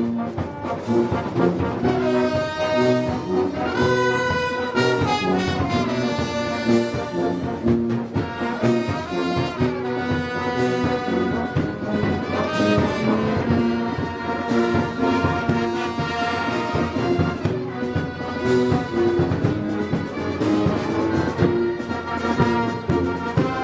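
Festival brass band playing Moros y Cristianos march music, with trombones and trumpets holding long notes over a steady beat of drums and cymbals.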